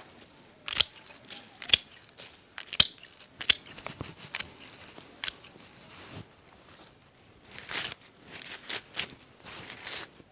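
Chrysanthemum stems being cut at harvest: a string of sharp snips, about one a second for the first six seconds or so. Rustling of leafy stems follows near the end.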